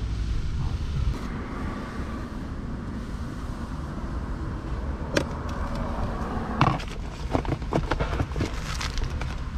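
Steady low rumble with a run of clicks and knocks in the second half, the loudest a single knock about two-thirds of the way through: things being handled while cleaning a car's interior.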